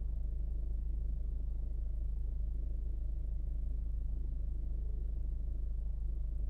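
2016 Ford Focus engine idling steadily with a fast, even pulsing. This is the knocking noise that comes at idle and goes away for some seconds after a light rev, which the owner cannot yet explain.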